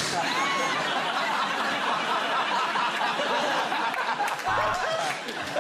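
Studio audience laughing at a punchline, a dense crowd sound that eases a little near the end.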